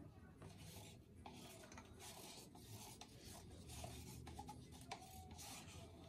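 Faint, repeated scraping and rubbing of a stir stick and plastic paint cups being handled, in short strokes roughly every half second to a second.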